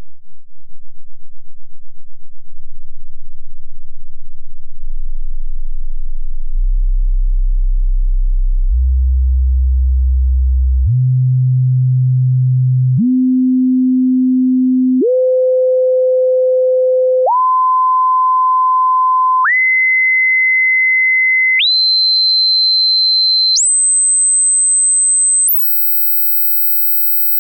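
Hearing-test sine tones played to the right ear, stepping up in pitch about every two seconds, each roughly an octave higher than the last. They climb from a very low hum to a piercing high whine, then cut off suddenly.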